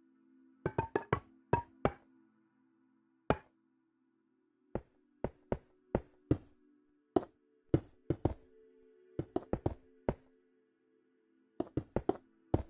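Short sharp taps on a hard object, about thirty in irregular clusters of quick strokes with gaps between, some with a brief ring to them, over a faint steady hum.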